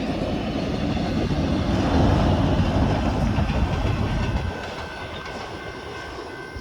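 A short train hauled by two locomotives passing close by: engine and wheel-on-rail noise, loudest about two seconds in, then falling away after about four and a half seconds as the train goes past.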